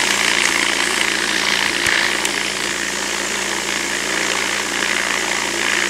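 Vibratory case tumbler running, its motor humming steadily while range brass rattles and rubs through the polishing media inside the bowl.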